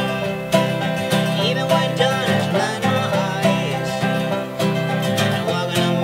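Acoustic guitar strummed and banjo picked together, playing a folk-bluegrass tune with a steady beat.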